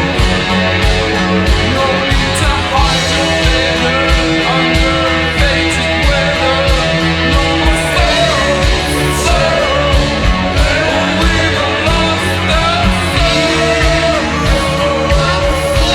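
Slowed-down, reverb-drenched post-punk rock song with a woman singing over guitar, bass and a steady drum beat.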